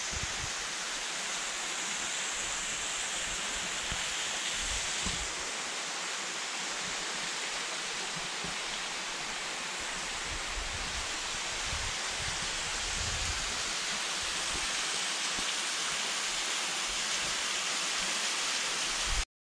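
Rushing water: a steady, even roar of a waterfall or fast mountain stream that cuts off suddenly just before the end.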